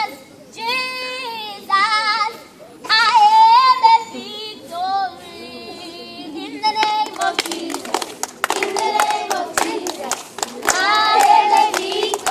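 A group of children singing a song together; from about seven seconds in they clap their hands in rhythm as they sing.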